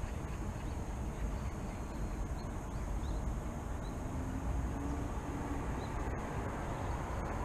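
Steady low rumble of distant city traffic, with faint, scattered bird chirps over it and a brief low tone about four seconds in.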